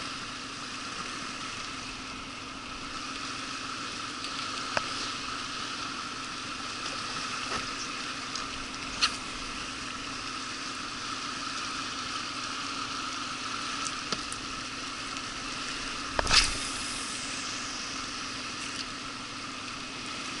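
Steady hiss of flowing mountain-river water around a drifting inflatable boat, broken by a few sharp clicks and knocks, the loudest about sixteen seconds in.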